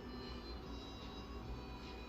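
Quiet background music with held, sustained notes.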